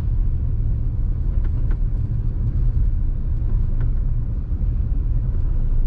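Maruti Alto CNG car moving in third gear under light throttle, heard from inside the cabin: a steady engine and road rumble with a few faint knocks. The knocks are the light 'tak tak tak' the owner hears from the gearbox, a fault he takes seriously on a car under 5,000 km.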